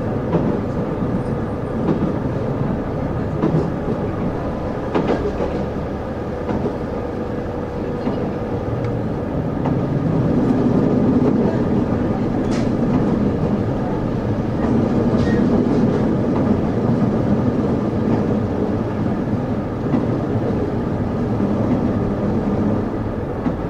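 Inside a KiHa 75 diesel-hydraulic railcar under way: its diesel engine running with wheels rumbling on the rails and occasional clicks, the whole growing louder about ten seconds in.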